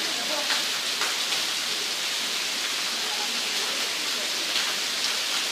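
Heavy rain pouring onto a wet paved courtyard: a steady, even hiss of downpour.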